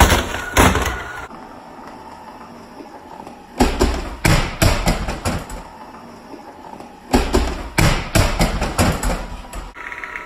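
Robot vacuum running with a steady hum, broken by three bursts of rapid knocks and thumps.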